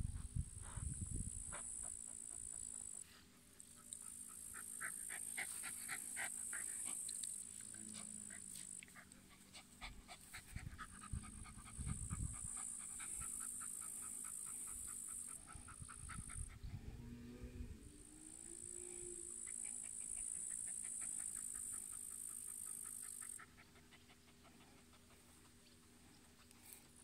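A dog digging into turf and soil: runs of quick scratching as its paws tear at the earth, with panting between bouts.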